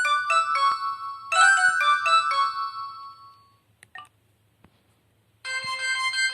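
Alcatel OT-282 mobile phone playing its built-in MIDI ringtones: a melody of short notes that dies away about three and a half seconds in, followed by a couple of faint clicks and a short pause, then a second ringtone starting about five and a half seconds in.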